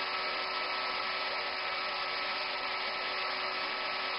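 Steady cockpit background noise on a DC-9 cockpit voice recorder: an even hiss with a constant hum running under it, holding level throughout.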